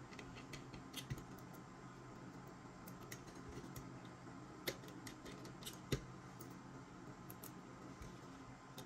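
Hand screwdriver turning small screws into a computer mouse's plastic frame: faint, scattered ticks and clicks, with two sharper clicks near the middle.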